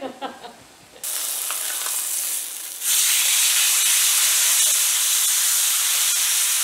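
Marinated flank steak sizzling on a stainless flat-top griddle as it is turned with tongs. The steady sizzle starts suddenly about a second in and grows louder about two seconds later.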